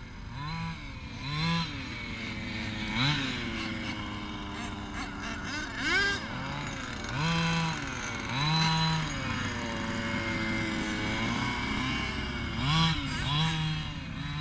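Losi DBXL K&N Edition RC buggy's 29cc two-stroke gas engine, freshly broken in, revving up and falling back again and again under bursts of throttle, its pitch climbing and dropping with each burst.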